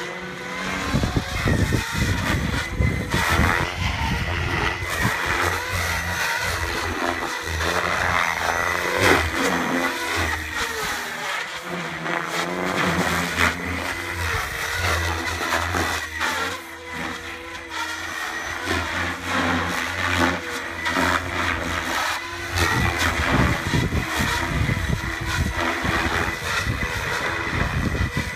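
Goblin 700 radio-controlled electric helicopter flying aerobatics: the three-blade main rotor gives a low thrum that swells and fades as the blade pitch and attitude change, over a steady high whine from the Scorpion brushless motor and drive.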